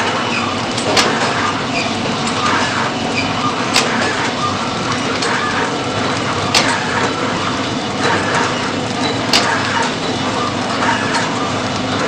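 Powder packing machine running: a steady mechanical clatter with a sharp click about every three seconds, marking its regular packing cycle.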